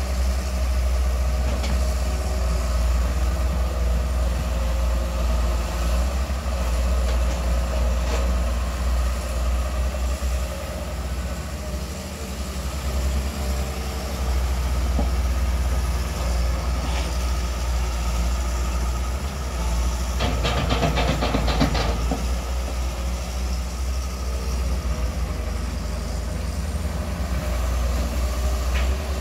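Long-reach excavator's diesel engine running steadily with a low drone. A rapid rattle lasts about two seconds, about two-thirds of the way through.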